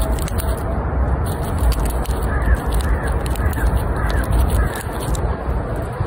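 Steady low wind noise on the microphone with scattered faint clicks of a red squirrel gnawing a nut close by. A bird calls five times in the background a little past the middle, about twice a second.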